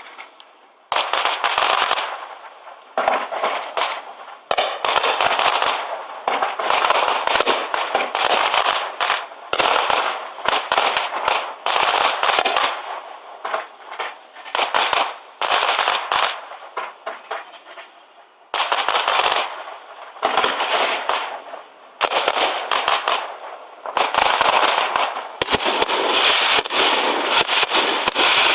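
Fireworks going off in rapid volleys of sharp crackling reports. The volleys come in clusters of a second or two with short lulls between them, and they turn almost continuous near the end.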